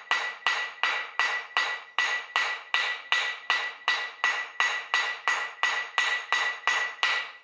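Cross-peen hammer striking a hot mild-steel cross arm on an anvil in a steady rhythm of about three blows a second, each blow ringing. The blows are spreading the end of the arm into a flared fishtail. The hammering stops just before the end.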